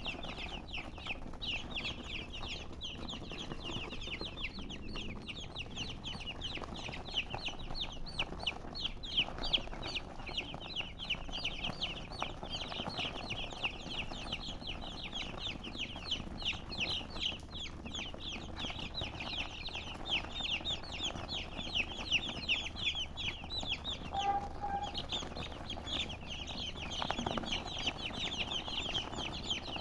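Chickens chirping: a dense, unbroken run of short, high, downward-sliding chirps, several overlapping, with a short break about 24 seconds in.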